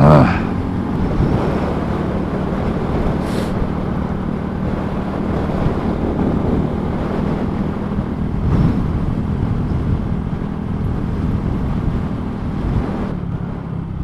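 Honda Grom's 125 cc single-cylinder engine running at a steady cruise, with wind rushing over the microphone. It swells louder for a moment at the start and again about eight and a half seconds in.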